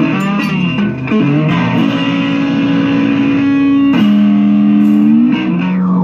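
Electric guitar played slide-style through amplifiers, with long sustained notes that glide between pitches. One note is held for about two seconds, the pitch drops lower about four seconds in, then slides back up near the end.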